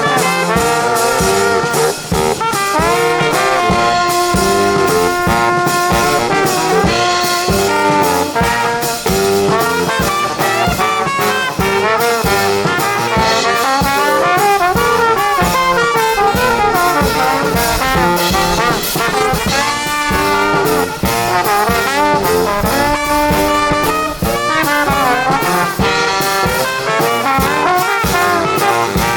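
Brass band playing a lively tune, trumpets and trombones over a steady drum beat.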